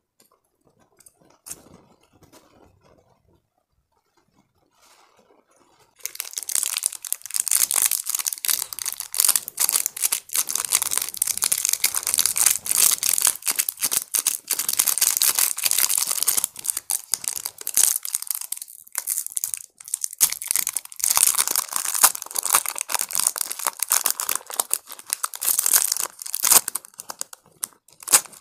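Foil-lined plastic lollipop wrapper being torn open and crinkled by hand. After a few faint clicks, dense crackling starts about six seconds in and carries on with brief pauses.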